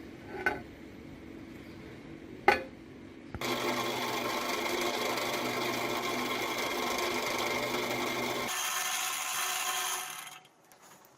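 Two sharp clicks, then a machine starts up about three seconds in and runs steadily; near the end its low hum drops away, leaving a higher whirr that stops shortly after.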